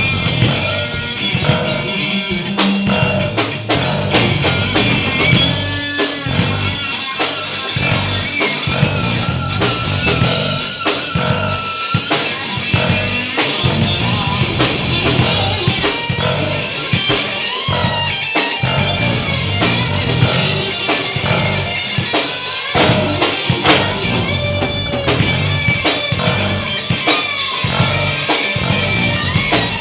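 A live rock band plays an instrumental stretch: guitar over a drum kit.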